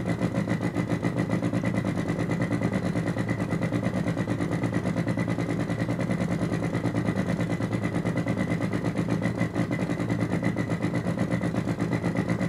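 Synthetic engine sound from two function generators in sweep mode played through a small amplifier: a fast, pulsing low buzz with a steady high tone above it, imitating a rough-running idling engine.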